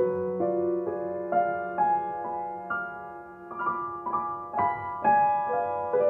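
Background music: a soft piano piece, single notes and chords struck about twice a second and left to ring.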